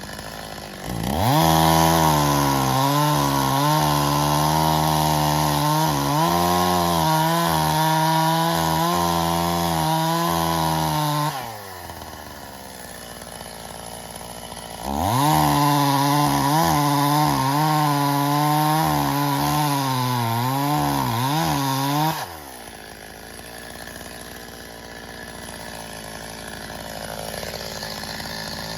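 Stihl MS 270 two-stroke chainsaw revved to full throttle for two long cuts into birch logs, the first about ten seconds and the second about seven. Its pitch wavers under load during each cut. Between and after the cuts it drops back to idle.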